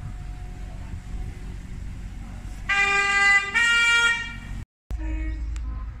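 Passenger train's two-tone horn sounding once, about three seconds in: one note and then a second, different note, each under a second. It plays over the low rumble of the approaching train and ends in an abrupt cut.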